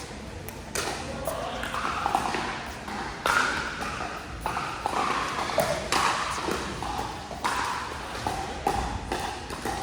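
Pickleball paddles striking the plastic ball in a rally: sharp pops at uneven intervals of about a second.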